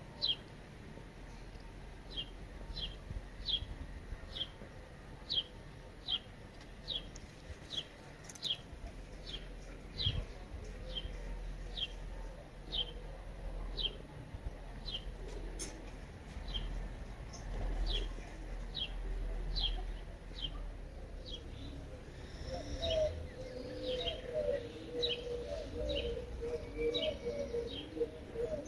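A bird chirping over and over: short, high notes that slide downward, about one or two a second. Near the end a lower, quicker series of calls joins in.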